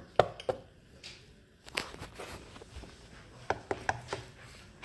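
A scattered series of light, sharp taps and clicks, some in quick pairs, with gaps between them.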